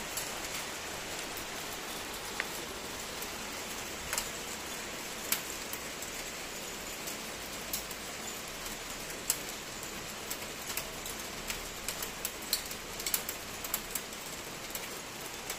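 Hail and rain falling on a tiled balcony: a steady hiss with scattered sharp ticks of hailstones striking, the ticks coming more often in the last few seconds.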